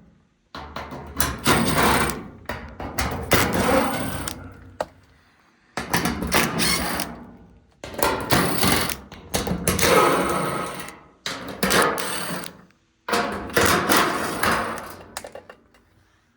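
Cordless DeWalt driver with a 1/4-inch nut bit backing hex-head screws out of a dryer's sheet-metal back panel, running in about six separate bursts of one to three seconds each with short pauses between them.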